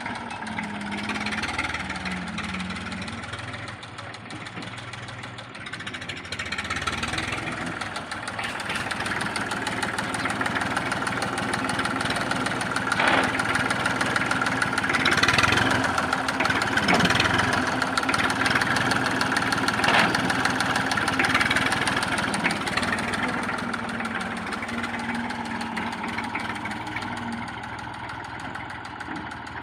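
Massey Ferguson tractor's diesel engine running, with its revs rising so it runs louder through the middle in several short surges, then settling back to a steadier, quieter run near the end.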